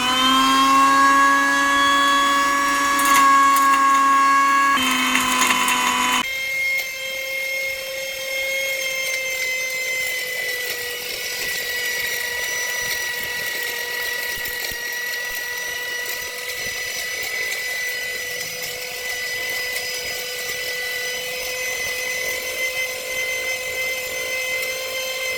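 Hotstarr Bullet mixer grinder's motor running at full speed, grinding a batch down to fine powder: a loud, steady whine. About six seconds in, the lower hum drops away and a thinner, higher whine carries on.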